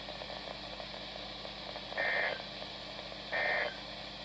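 Emergency Alert System end-of-message data bursts on NOAA Weather Radio: after a stretch of faint radio hiss, two short, identical buzzing digital bursts just over a second apart, starting about two seconds in, the tone code that closes the Required Weekly Test broadcast.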